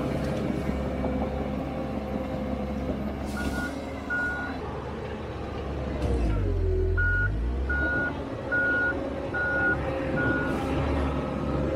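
Komatsu D31EX crawler dozer's diesel engine running as the machine backs up, its reverse alarm beeping: two beeps about a third of the way in, then a steady run of five beeps in the second half. The engine note deepens and grows louder about halfway through.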